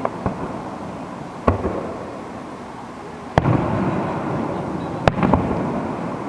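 Aerial fireworks shells bursting overhead, a sharp bang every second or two, each trailed by a rolling, echoing rumble. The loudest bang comes about three and a half seconds in, and a quick pair of cracks follows near five seconds.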